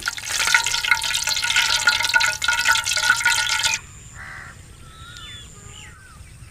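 Hot oil sizzling and crackling in an aluminium karahi of deep-frying pakoras. About four seconds in it cuts off to quieter open-air ambience with a crow cawing and short whistling bird calls.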